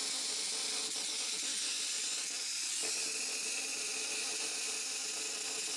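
Small brushed DC motor from a submersible camper water pump running: a steady hiss with a constant tone under it. It is no longer turning smoothly and is sparking at the brushes, the motor of a water-damaged pump that is worn out.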